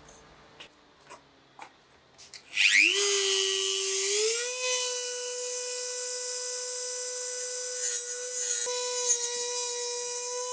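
A few light ticks, then an electric power tool motor spins up about two and a half seconds in, runs at a steady high-pitched whine for about eight seconds, and begins winding down at the very end.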